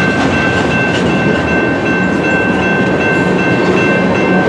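Freight train tank cars rolling past on steel rails: a steady rumble of wheels on track, with a steady high-pitched whine held over it.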